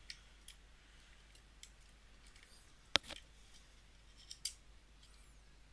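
Small plastic clicks and taps as the buttons of an opened mini pouch heat sealer are handled and fitted back into place, with one sharp snap about three seconds in and two more clicks near the end, plus faint high squeaks of plastic rubbing.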